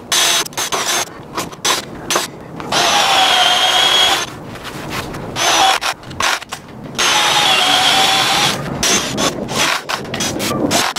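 Porter-Cable 20V cordless drill boring into a wooden beam, running in several bursts with a steady motor whine, stopping and starting between runs.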